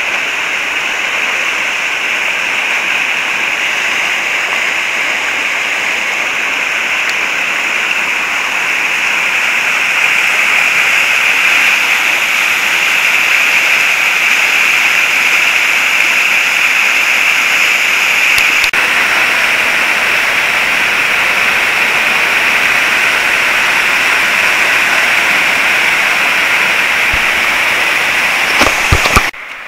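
Loud, steady rush of whitewater rapids and a waterfall pouring into its plunge pool, a little louder after about ten seconds, with a few brief knocks near the end.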